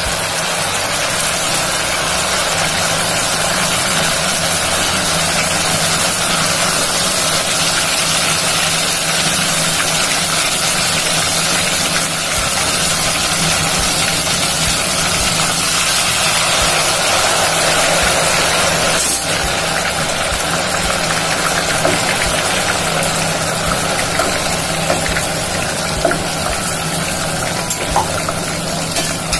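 Ghevar batter frying in very hot ghee in a steel pot, the ghee sizzling and bubbling loudly and steadily, with a steady low hum underneath.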